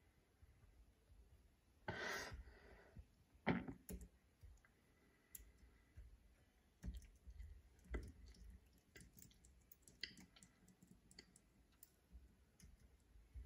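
Near silence with faint scattered clicks, and a short rustle about two seconds in.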